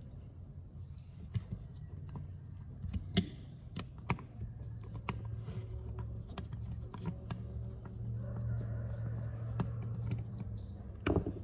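Torx screwdriver backing the retaining screws out of a Snapper mower's drive disc hub: scattered small metal clicks and taps of the bit in the screw heads, over a steady low hum.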